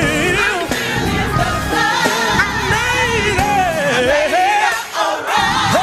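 Live band playing a soul groove on organ, bass, electric guitar, drums and saxophone, with a lead melody line sliding and bending in pitch over it. The bass and drums drop out for about a second near the end, then come back in.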